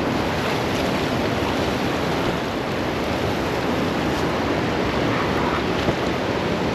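Steady rushing noise with a heavy, fluttering low rumble: wind and moving river water on a body-worn microphone.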